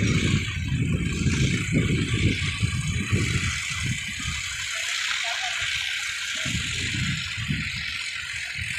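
Diesel tractor engines running at idle, with irregular low rumbling gusts, thinner for a couple of seconds mid-way, over a steady hiss.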